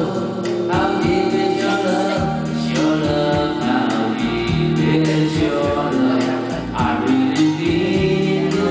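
Music with singing voices over a steady beat.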